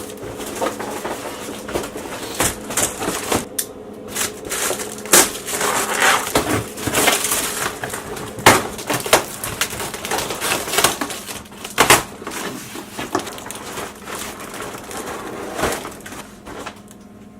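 Cardboard and wrapping on a boxed car steering rack being pulled and torn open by hand: continuous crackling and crinkling broken by several sharp snaps, loudest about 5, 8 and 12 seconds in, easing off near the end.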